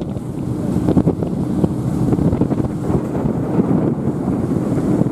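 Wind buffeting the microphone on board a moving water bus, over the steady low running of the boat's engine and water washing past the hull.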